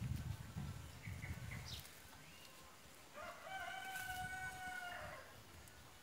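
A rooster crowing once, about three seconds in: a single drawn-out crow held for about two seconds that trails off at the end. Before it, low rumbling noise and a few short bird chirps.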